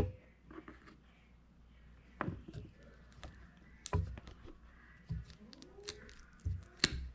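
Cutting the end off a rubber air-compressor hose: scattered sharp clicks and snaps with a handful of low knocks from handling the hose and cutter, the loudest snap near the end.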